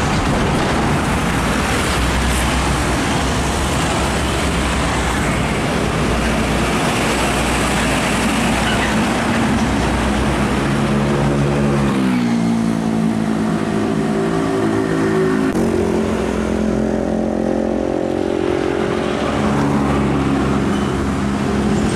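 Heavy trucks passing close on a busy road, a dense rush of tyre and engine noise. From about halfway a Mitsubishi Fuso Fighter dump truck's diesel engine pulls hard as it approaches. Its pitch rises, drops back about two-thirds through, then climbs again.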